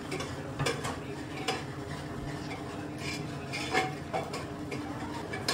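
Metal spoon stirring a spice mix soaked in water in a small metal bowl, clinking against the sides now and then over a steady low kitchen hum.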